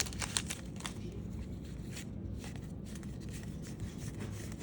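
Faint rustling and soft clicks of trading cards being handled and slid past one another, mostly in the first second, over a low steady room hum.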